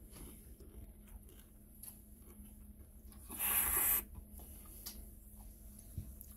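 Quiet eating sounds, soft clicks of chewing and handling food, with one brief loud hiss about halfway through.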